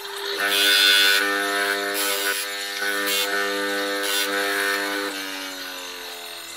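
Electric disc sander running with a steady hum, with scratchy sanding noise in stretches as a small part is held against the abrasive disc. About five seconds in it is switched off and its pitch falls slowly as the disc coasts down.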